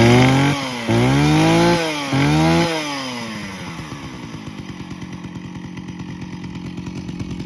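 Jonsered 621 two-stroke chainsaw revved three times in quick succession, its pitch climbing and dropping back each time, then settling to a steady idle.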